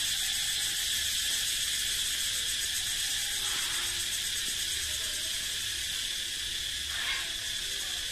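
Cicadas calling in chorus: a steady, high-pitched buzzing drone.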